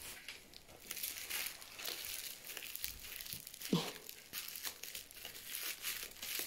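Bubble-wrap plastic mailer crinkling and crackling irregularly as it is handled and cut open with scissors. A brief vocal sound comes a little past halfway.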